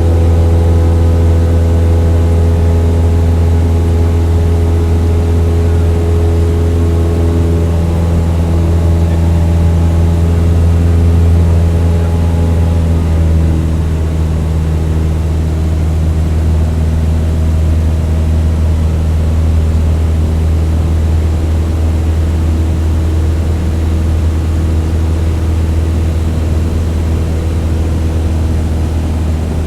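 Airplane engine droning steadily in flight, a deep hum with several steady overtones. About halfway through the engine note drops slightly and then holds.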